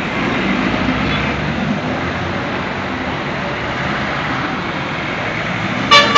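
Steady roadside traffic noise, with a vehicle horn honking loudly near the end.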